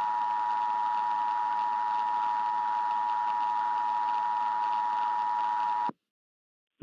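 Emergency Alert System attention signal: two steady tones near 853 and 960 Hz sounding together over a hiss, cutting off suddenly about six seconds in.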